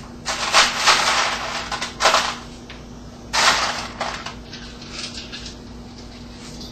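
Ice cubes clattering and crunching as a handful of ice is taken, in three noisy bursts over the first four seconds.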